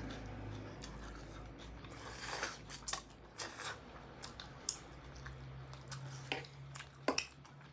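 Close-miked mouth sounds of chewing sausage chowmein noodles: scattered wet clicks, with a short rush of noise about two seconds in.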